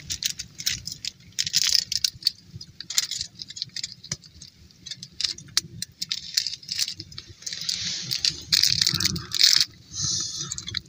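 Aluminium foil crinkling and crackling under a knife cutting a pork chop, with the knife's scrapes and clicks against the foil. It comes in irregular bursts, busiest near the end.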